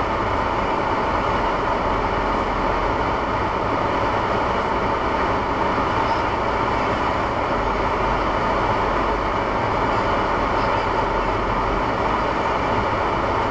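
A Honda Civic running, heard from inside the cabin: a steady mix of engine and tire noise that holds even throughout.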